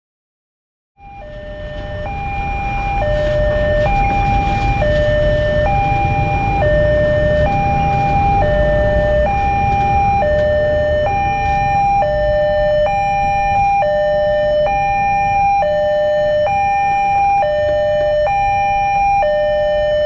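Railway level-crossing warning alarm sounding an electronic two-tone signal, switching between a higher and a lower pitch about once a second, starting about a second in. It warns of an approaching train as the crossing barrier closes.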